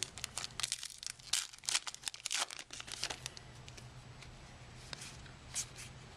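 Trading-card pack wrapper crinkling and tearing: a dense run of short crackles for the first three seconds or so, then a few scattered ones.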